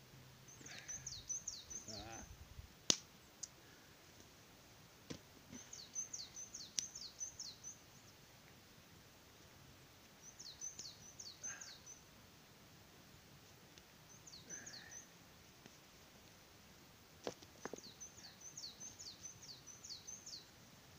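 A small songbird singing a short phrase of quick, high, falling notes, repeated five times about four seconds apart. A sharp click about three seconds in.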